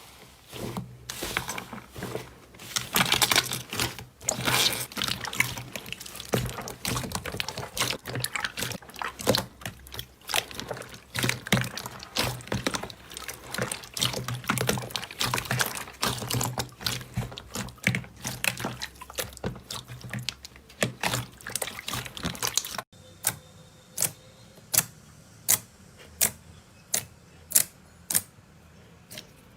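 Slime being squeezed and kneaded, a dense run of wet crackling and popping. About 23 seconds in it cuts to a quieter stretch of single sharp clicks, a little more than one a second.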